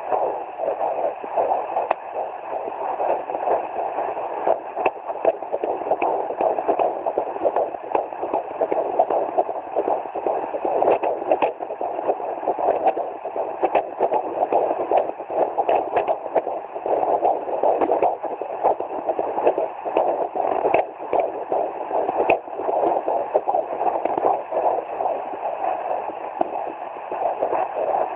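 Fetal doppler playing the heartbeat of a 17-week fetus through its speaker: a pulsing whoosh over steady static hiss.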